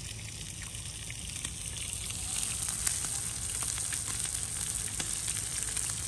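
Food sizzling in a frying pan on a portable camping gas stove: a steady hiss with scattered small crackles, getting a little louder about two seconds in.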